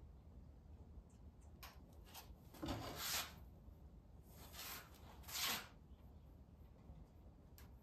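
Short rubbing and rustling sounds of painting materials being handled, about three of them around the middle, the first the loudest, with a few faint clicks.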